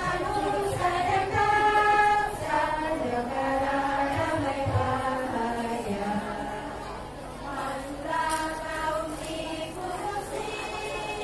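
Women's choir singing an anthem together, one singer on a microphone.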